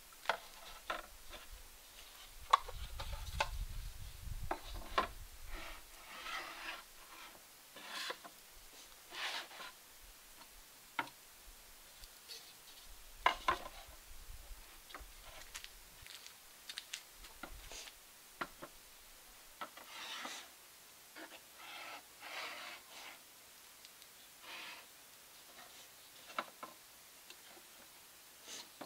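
Tableware being set out on a wooden table: white divided plates and dishes set down and slid into place, giving scattered light knocks and clicks with short scrapes on the wood.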